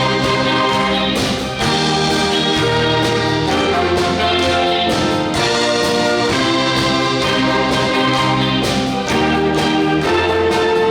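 Live brass-led ensemble playing a loud, full-chorded tune, its held chords changing about every second.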